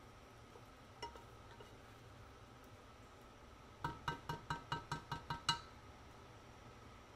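A spatula knocking against the side of a stainless steel pot while stirring a thick shrimp gravy, the pot ringing with each knock: one knock about a second in, then a quick run of about nine knocks just past the middle.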